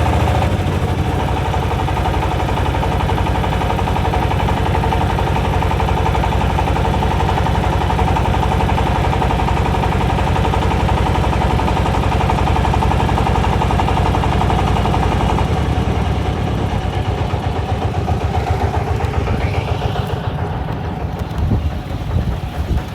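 Boat engine running at a steady, rapid pulse. About two-thirds of the way through it drops to a lower, more uneven run, as if throttled back, and a few low knocks come near the end.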